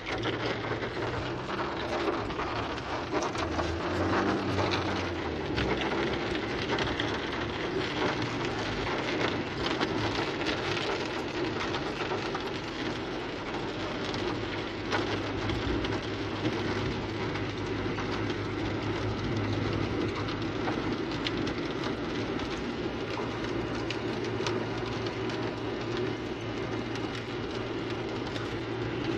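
Rain falling on a car's roof and windscreen, heard from inside the cabin as a steady patter, over the low steady drone of the car driving on a wet road.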